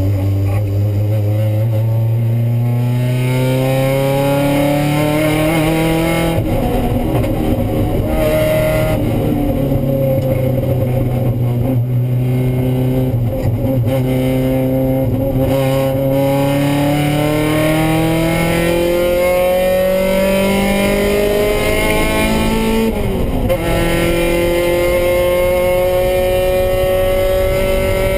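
Mazda Miata race car's four-cylinder engine heard from inside the cabin, accelerating hard through the gears: the pitch climbs steadily in each gear and drops back at each upshift.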